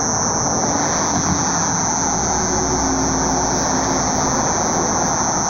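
A steady, high-pitched, cicada-like buzz drones without a break over low vehicle noise. Those hearing it say it comes from the sky, but its source is unexplained.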